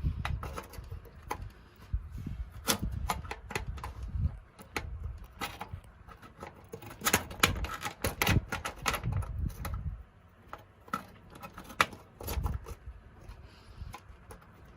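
Irregular clicks and taps of a CPU cooler's mounting bracket and small hardware being handled and fitted, with a low rumble of handling under them that dies away about ten seconds in.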